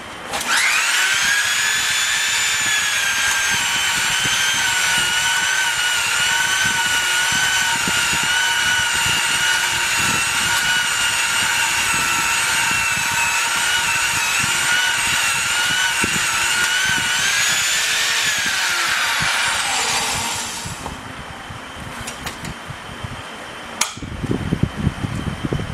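Belt polisher running a 400-grit belt with rouge against a crankshaft rod journal turning in a crankshaft grinder, polishing it down to final size. A steady high whine spins up within half a second, then winds down with a falling pitch about three quarters of the way through, leaving a lower machine hum.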